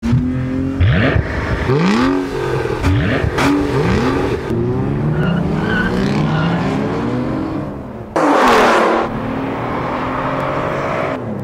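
Mercedes CL65 AMG, Aston Martin DB9 and Bentley Continental GT accelerating hard side by side from a standing start, their engines revving up and dropping back with each quick upshift, then pulling in longer climbs. A short loud rush of noise about eight seconds in.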